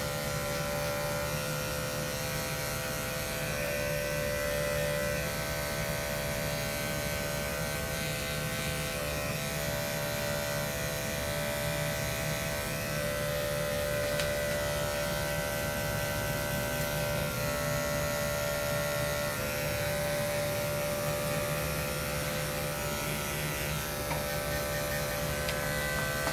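Corded electric pet grooming clippers running steadily with an even buzzing hum while trimming the hair on a puppy's paw pads.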